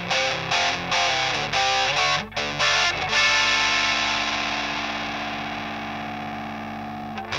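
Electric guitar played through a Rullywow Eaglet overdrive pedal (a build of the EarthQuaker Devices Talons), with a distorted tone: quick picked chords for about three seconds, then one chord left to ring and slowly fade.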